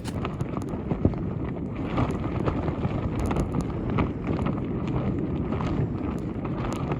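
Strong wind buffeting the microphone while a camping tarp flaps in it, with irregular sharp snaps of the fabric.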